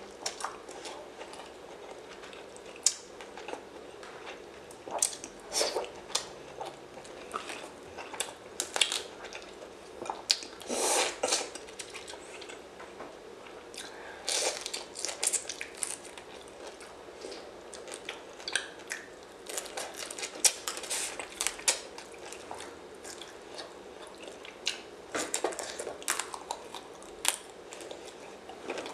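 Close-miked mukbang eating sounds: chewing and biting raw seafood, with sharp, irregular clicks and crackles coming in clusters as prawns are peeled by hand and eaten.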